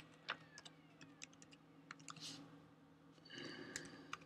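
Faint typing on a computer keyboard, scattered keystrokes clicking. A brief faint pitched sound comes about three seconds in.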